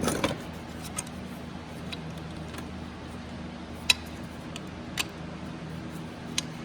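Scattered light metallic clicks and clinks of small parts being handled while a mega fuse holder is fitted. One sharper click comes about four seconds in, over a steady low hum.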